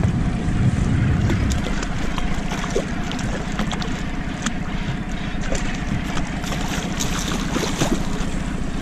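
Hooked sea fish thrashing and splashing at the water's surface beside a small boat, the splashing busiest near the end as a hand reaches for it, over a steady rumble of wind on the microphone.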